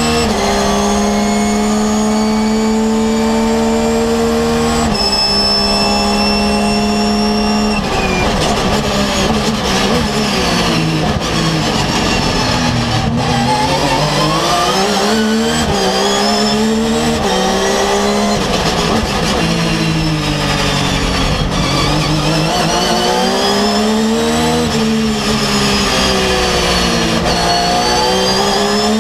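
Porsche 911 GT3 R's flat-six racing engine heard on board at full throttle, holding high revs on a straight with a shift about five seconds in. From about eight seconds in the revs fall and rise again and again as it brakes, downshifts and accelerates through a series of corners.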